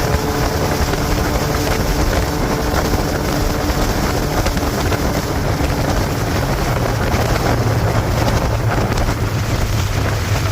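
Steady, loud running noise of a vehicle: a constant low hum under an even rush, with no change in pace.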